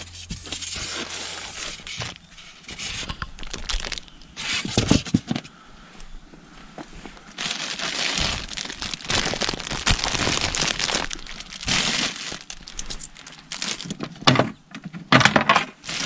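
Thin plastic produce bags crinkling and rustling in irregular bursts as they are handled by hand, with scattered sharp clicks and knocks.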